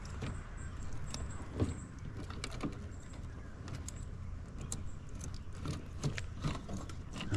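Scattered light clicks and small rattles of wires and metal parts being handled and fitted by hand, over a low steady hum.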